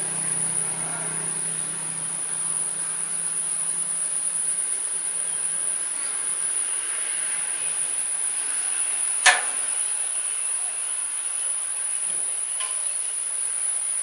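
Steady high-pitched insect chorus of outdoor background insects trilling without a break, with a single sharp click about nine seconds in.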